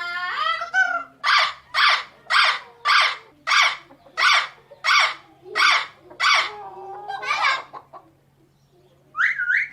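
Parrot calling: one drawn-out call, then a run of about ten short, evenly spaced calls about two a second, then a few looser calls and a rising call near the end.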